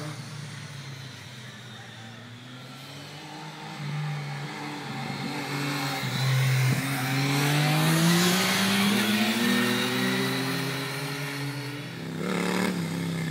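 Triumph motorcycle engine passing close by and accelerating through a corner, its pitch rising steadily as it pulls away. It is loudest from about six seconds in, with other bikes fainter in the distance before that.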